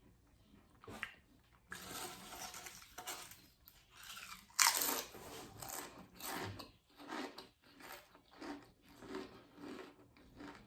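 Pringles potato crisps being bitten and crunched in the mouth. Crunching starts about two seconds in, with the loudest bite near the middle, then steady rhythmic chewing.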